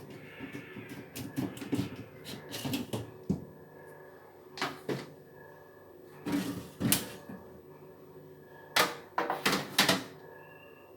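Clatter of a refrigerator being cleaned out by hand: irregular clusters of sharp clicks and knocks as shelves, containers and other parts are handled.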